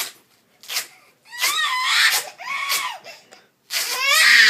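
Velcro ripped open once, then a small child screaming and crying in fright at the sound, in rising wails with the loudest and longest near the end.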